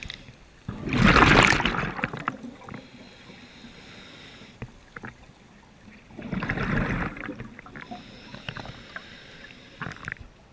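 Scuba diver breathing through a regulator underwater: two loud exhalations of bubbles about five seconds apart, each lasting over a second, with a quieter hiss of inhaling between them.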